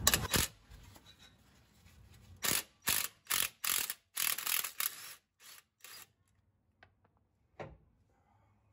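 Cordless impact wrench driving a wobble socket in a series of short trigger bursts, backing out the 15 mm bolts on the front driveshaft's axle-end flange. A few faint metallic clicks follow near the end.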